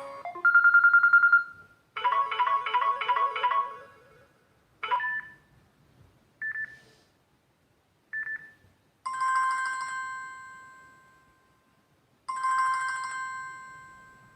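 A run of Samsung Galaxy Note 4 notification tones, each played once with silences between. First a short trilled beep, then a rhythmic chiming phrase, then three short single blips about a second and a half apart. Last come two bell-like dings about three seconds apart, each fading out slowly.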